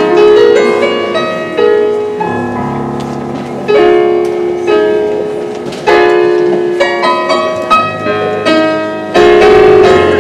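Piano playing slow chords with a melody over them, each chord struck and left to ring and fade before the next, every second or two.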